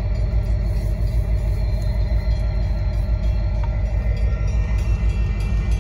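Union Pacific freight train of hopper cars rolling past close by: a steady, loud rumble of wheels on the rails.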